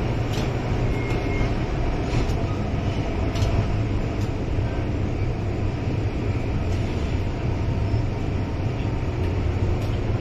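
MTR Island Line M-Train heard from inside a motor car while running: a steady rumble of wheels on the track and traction equipment, with faint steady motor tones and a few light ticks from the track. The uploader notes an unusually doubled traction-motor sound in this car that persists even while the train slows.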